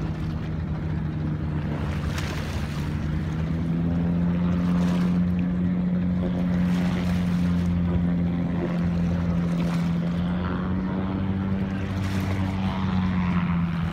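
Boat engine running steadily, a low hum with a few even overtones that rises slightly in pitch and gets louder about three seconds in.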